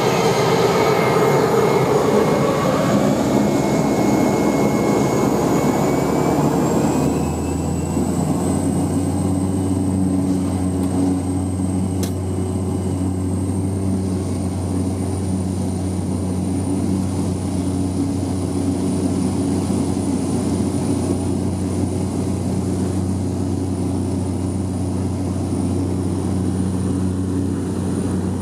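Cessna 208 Caravan's PT6A turboprop engine and propeller at takeoff power, heard from inside the cabin during the takeoff run on water. A high turbine whine climbs in pitch over the first several seconds, then the engine settles into a steady drone.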